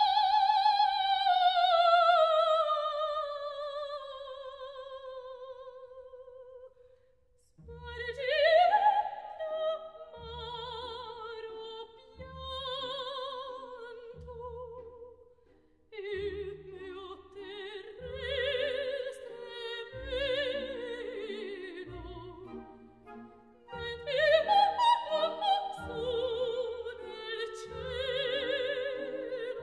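Operatic soprano with orchestra: a long held note with wide vibrato slowly sinks in pitch and fades away. About eight seconds in, the orchestra comes in with evenly spaced chords beneath her continued singing, peaking in a loud high phrase near the end.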